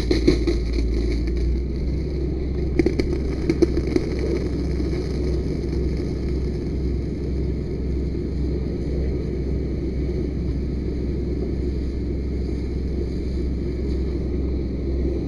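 Fire hose nozzle spraying a high-pressure water jet, heard as a steady rushing noise over a low rumble. A few sharp clicks at the start and again around three to four seconds in.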